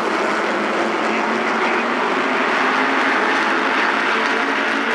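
A pack of SK Modified race cars at speed, their V8 engines running together in one loud, steady drone.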